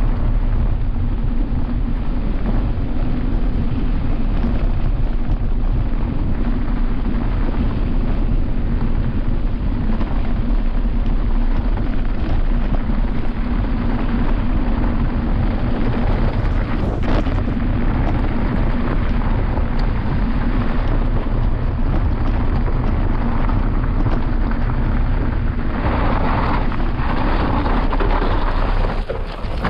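Loud, steady wind rush over the microphone of a camera on a mountain bike descending fast, mixed with the low rumble of knobby tyres rolling over a rough trail.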